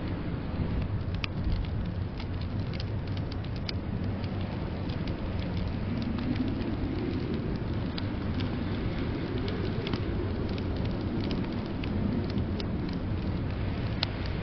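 Wood fire crackling in a fireplace, scattered sharp pops and snaps over a steady low rumble of blizzard wind that swells and eases around the middle.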